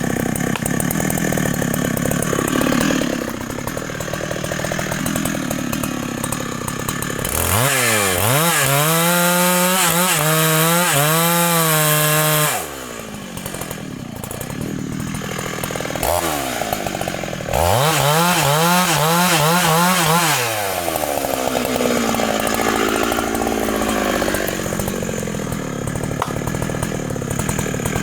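Large two-stroke Husqvarna chainsaw cutting through the trunk. It runs throughout, opens to full throttle twice, for about five seconds from about seven seconds in and for about three seconds near seventeen seconds, and drops back to lower revs between and after.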